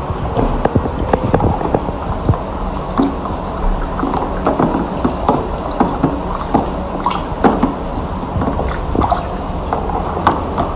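Water dripping and splashing around a wet screen-polishing machine, with irregular small clicks and knocks from handling, over a steady low machine hum.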